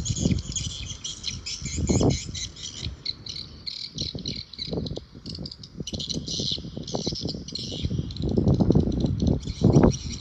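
Wind gusting on the microphone in loud, uneven rumbles, over a continuous dense high chirping from small birds.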